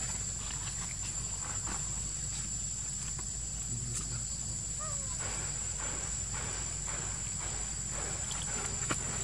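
Outdoor ambience: a steady high insect drone over a low rumble, with scattered light rustles and clicks and a short faint chirp about five seconds in.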